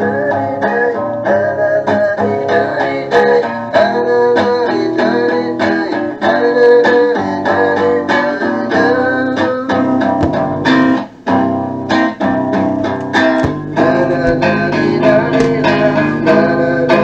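Recorded guitar music played back from a cassette tape: a song with plucked and strummed guitar that keeps a steady rhythm.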